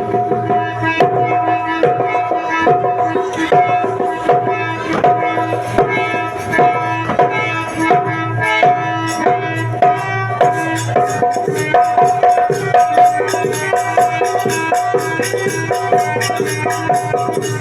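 Instrumental music led by tabla: regular drum strokes over steady held melody notes. About halfway through, a fast, high ticking joins the beat.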